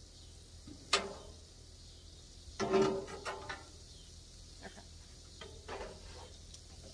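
Metal spatula and tongs clinking and scraping against a plate and the steel top of a Blackstone griddle as cooked food is lifted off: a sharp clink about a second in, a longer clatter near three seconds, then a few lighter taps, over a faint steady sizzle.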